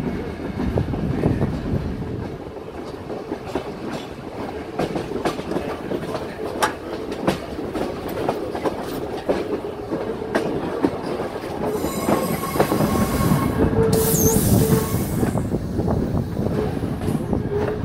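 Steam-hauled train running on the rails, the wheels clicking and knocking irregularly over rail joints. A spell of high-pitched wheel squeal comes about twelve seconds in and is loudest around fourteen seconds.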